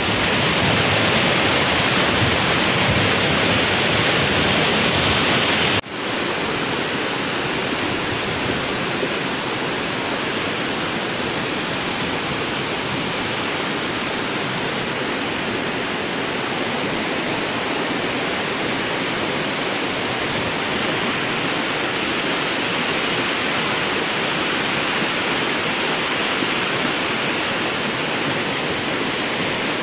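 Flash-flood torrent of muddy water rushing with stones tumbling in it, a steady, loud rush. It breaks off for an instant about six seconds in and carries on slightly quieter.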